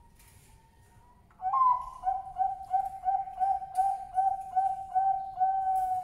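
Male zebra dove (Bangkok perkutut) cooing. It opens with one loud note about a second and a half in, then gives a rhythmic string of about ten short coos at roughly three a second, ending on a longer held coo.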